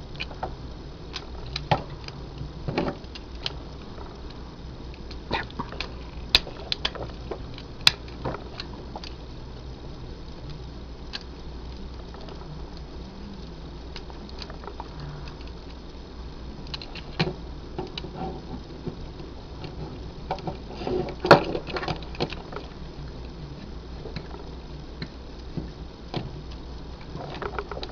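Plastic Transformers Energon Rodimus toy being transformed by hand: scattered small clicks and snaps of its plastic parts and joints, with a denser run of louder clicks about 21 seconds in, over a low steady hum.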